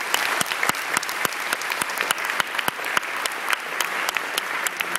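Audience applauding, a dense, steady run of hand claps.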